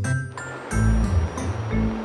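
Background music with a bass line, with a whooshing rush of noise over most of it.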